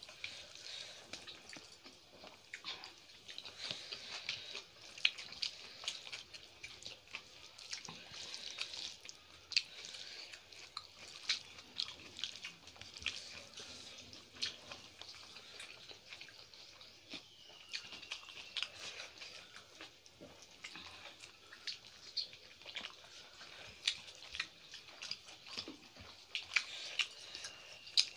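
Close-up eating sounds of rice and curry being eaten by hand: chewing and mouth smacks, with fingers mixing food on the plates, as many short, irregular clicks.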